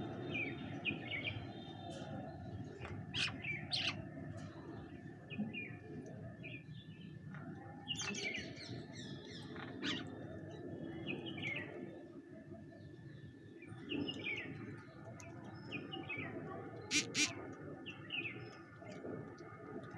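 Bank mynas chirping and chattering in short, varied calls over a steady low background noise, with two sharp clicks close together near the end.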